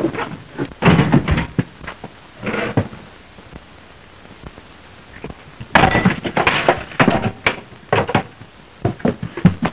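A fistfight: a rapid series of thuds, knocks and crashes as bodies hit furniture and the walls. It comes in two flurries, with a lull of a couple of seconds in the middle.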